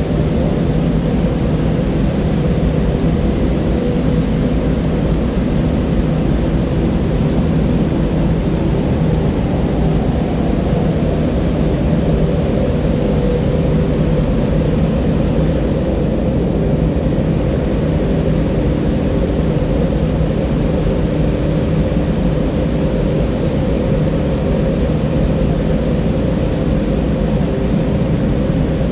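Flowing river water rushing steadily, a deep, even roar with no breaks.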